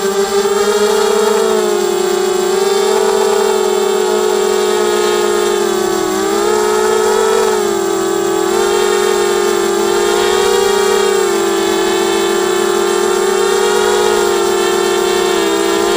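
ZMR quadcopter's brushless motors and propellers whining steadily in flight, the pitch wavering up and down every few seconds as the throttle changes.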